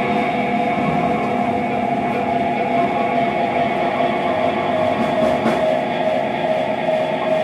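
Improvised space-rock music: a steady, droning wash of effects-laden electric guitars and keyboard holding sustained tones, with no clear beat.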